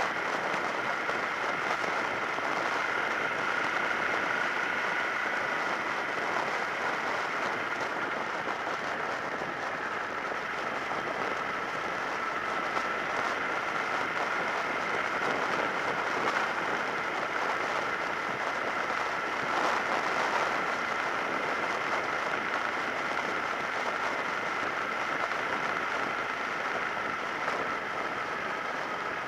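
Steady wind rush and riding noise from a Suzuki SV650S motorcycle cruising, picked up by a helmet-mounted camera, with two steady high whining tones running through it.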